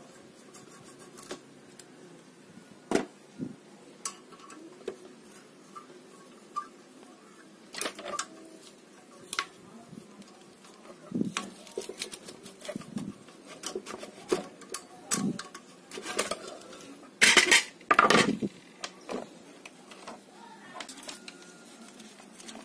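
Scattered clicks, taps and scrapes of a screwdriver and fingers working the plastic convergence-ring assembly and the deflection yoke loose on a CRT picture tube's neck, with a louder run of knocks and clatter about three-quarters of the way through as the parts come off.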